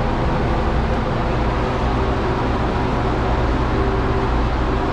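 Steady drone of a running motor, with a low hum and a few steady tones held throughout.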